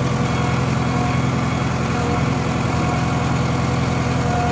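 JCB backhoe loader's diesel engine idling steadily, a constant low note.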